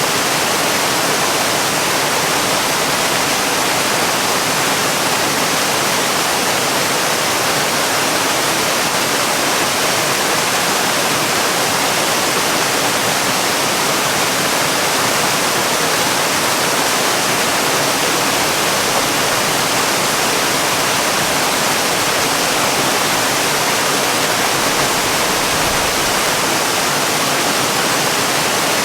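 Waterfall: a steady, unbroken rush of falling water, more hiss than rumble.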